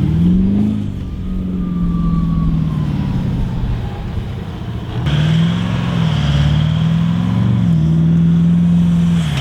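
4x4 engine working hard in soft sand, its revs rising and falling repeatedly as the driver works the throttle.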